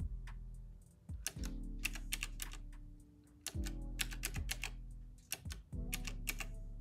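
Plastic keys of a calculator with round typewriter-style keycaps being tapped in quick runs of clicks as figures are entered and added up, over soft background music.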